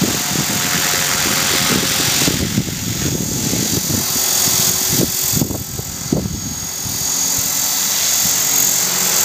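EXI 450 electric RC helicopter's motor and main rotor whining in flight while the helicopter flies inverted. Its pitch sweeps briefly up and down about halfway through, and it dips slightly in loudness as the collective is worked. There is little negative pitch authority: on full down it only just climbs.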